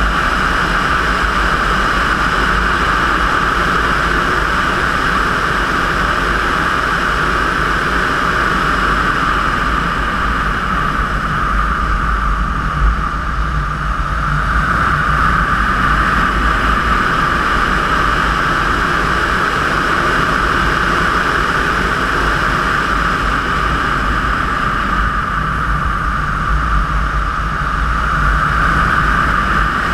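Steady rushing airflow noise over a glider's wing and the wing-mounted camera, with a low rumble of wind buffeting. The hiss eases off briefly twice and then builds again as the glider manoeuvres.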